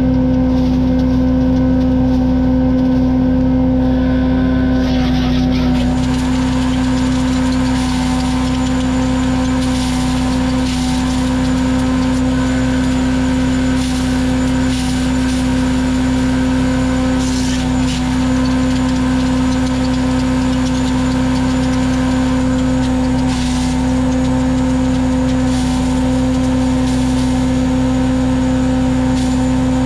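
Gas-engine wood chipper/shredder running at a steady, high speed, with a few short bursts of noise now and then.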